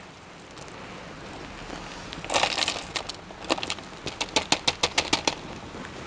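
Orchid potting mix of pine bark chips and limestone gravel handled into a plastic pot by hand. A rustle about two seconds in, then a quick run of sharp crackling clicks as the pieces are pressed and settled.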